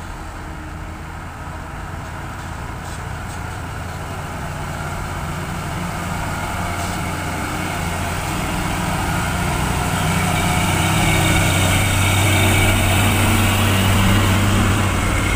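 Heavy diesel truck engine running at low speed, a steady low hum that grows steadily louder as the truck approaches and passes close by. It is loudest near the end.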